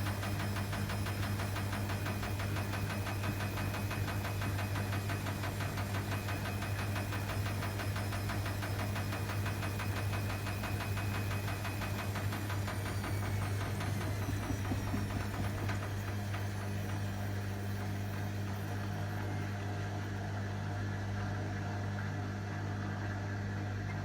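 Hotpoint WMA30 washing machine's motor and drum running through a spin attempt with an unbalanced load, with a steady hum and a fast, even rattle. About halfway through, the motor's whine falls in pitch as the drum slows down, as it does when the machine aborts an unbalanced spin.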